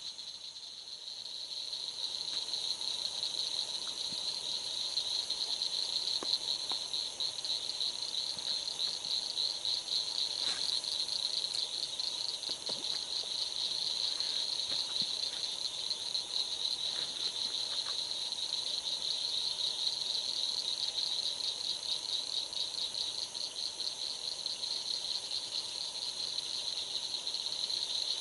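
A steady chorus of night insects, a rapid pulsing trill with no break, with a few faint ticks scattered through it.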